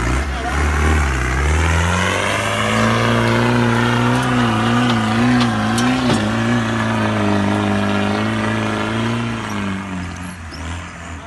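Land Rover Defender 300Tdi's 2.5-litre four-cylinder turbo-diesel engine pulling hard under load up a steep dirt slope. The revs climb over the first couple of seconds, hold with a slight wavering, and drop off near the end.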